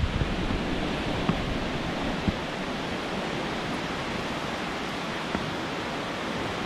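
A river rushing steadily through a rock gorge: an even, unbroken hiss of flowing water.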